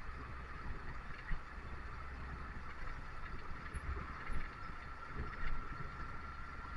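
Steady engine rumble and road noise of a moving bus, with a few short knocks and rattles. A thin steady whine comes in about halfway and grows stronger near the end.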